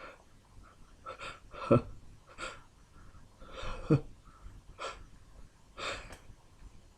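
A person's short, sharp breaths and sniffs during a sneezing fit, about six in all, with two louder voiced gasps near two and four seconds in.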